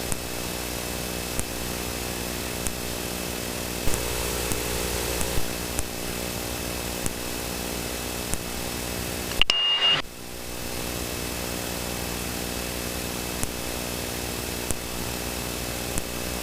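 Steady cockpit drone of a Cessna Citation V jet in descent, a constant hum of engine and airflow with faint ticks about every second and a bit. About nine and a half seconds in the sound drops out briefly with a short high beep, then the drone returns.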